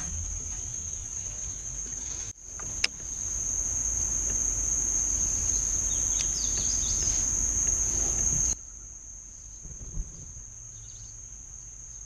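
Steady, high-pitched drone of insects over a low rumble, with one sharp click about three seconds in. The insect drone cuts off abruptly about eight and a half seconds in, leaving a much quieter background.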